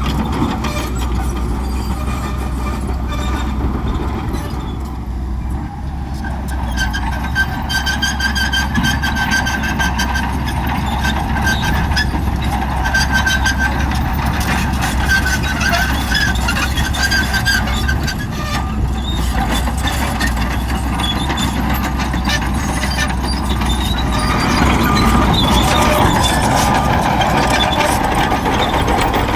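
Shantui bulldozer running steadily at work, with high squealing tones over the low engine sound, growing louder about 25 seconds in.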